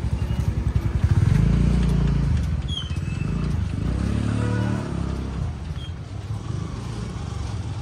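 A motor vehicle's engine running as it drives along, swelling to its loudest about a second in and easing off after a couple of seconds.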